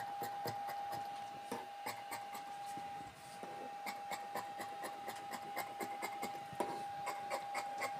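Tailor's scissors cutting through folded fabric: a run of short, crisp snips, a few a second, over a faint steady high hum.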